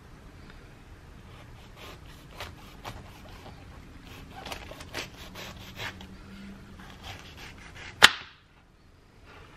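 Kitchen knife cutting into the rind of a pomegranate on a plastic cutting board: a run of faint, crisp crackles as the blade slices through the skin, then one sharp knock about eight seconds in as the blade comes through and meets the board.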